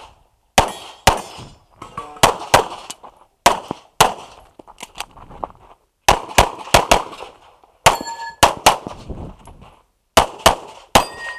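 A rapid string of handgun shots, mostly fired in quick pairs with short pauses between strings. Twice, late on, a steel target rings out after being hit.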